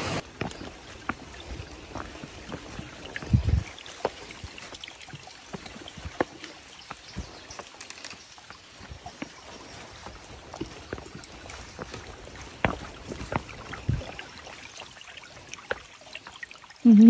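A small stream trickling and splashing, with scattered light taps and a couple of dull low thumps.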